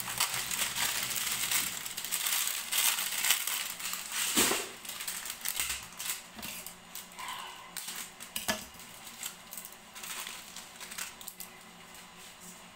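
Irregular crunching and crinkling handling noises with a couple of sharp knocks, loudest in the first half and dying down.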